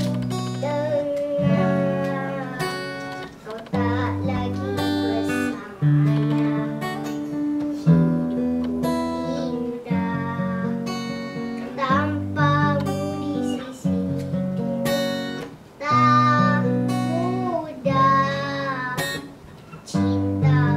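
Steel-string acoustic guitar being strummed, playing a steady run of chords that change every second or two.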